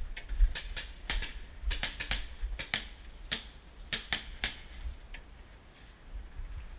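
Paintball markers firing: an irregular string of sharp pops, a few a second.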